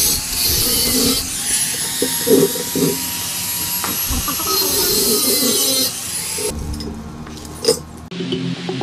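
Handheld electric angle grinder grinding a steel frame joint, its disc hissing on the metal over a high whine, then stopping about six seconds in.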